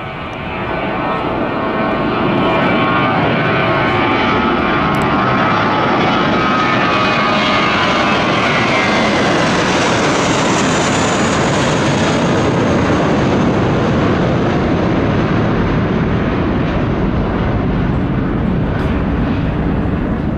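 Twin-engine Airbus A320-family jet airliner at take-off power, lifting off and climbing out overhead. The jet noise swells over the first two seconds and then holds loud, with whining engine tones that slide down in pitch as it passes over and away.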